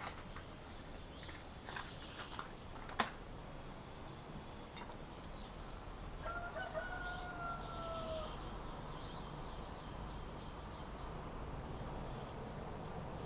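A rooster crows once, a single long drawn-out note of about two seconds with a slight fall in pitch, over faint small-bird chirping. A sharp click comes about three seconds in.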